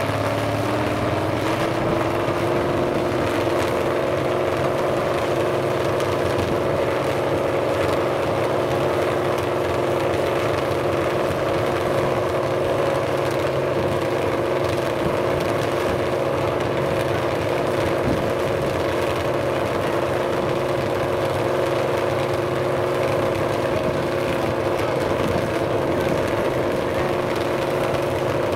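Demolition derby car's engine rising in pitch over the first couple of seconds, then held at a steady high pitch, over a rough background noise.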